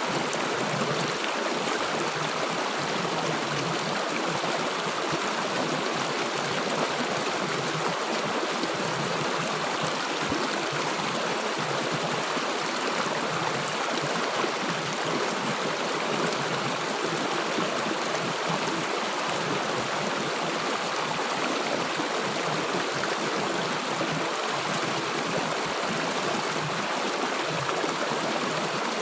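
River water rushing and gurgling over stones, a steady unbroken flow.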